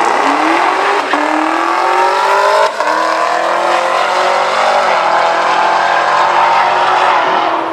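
Drag cars at full throttle accelerating away down the strip after the launch, the engine pitch climbing and then dropping back at gear changes about one, three and five seconds in.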